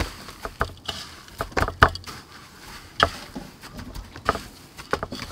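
Hands patting and pressing a chicken leg into coarse breadcrumbs in a stainless steel tray: irregular soft pats and taps, with sharper knocks about two and three seconds in.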